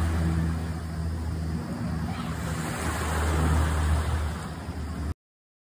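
A steady low engine drone with a rushing noise over it, easing a little midway and cutting off suddenly about five seconds in.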